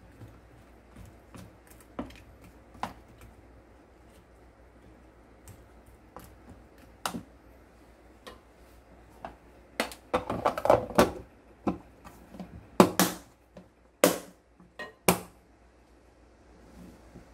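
A plastic lid set onto a glass food-storage container and pressed shut: a short clatter, then several sharp clicks. Faint scattered knocks come before it.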